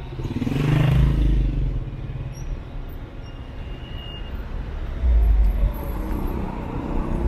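Street traffic: a motor vehicle passes with its engine running about a second in, and another low rumble comes around five seconds in.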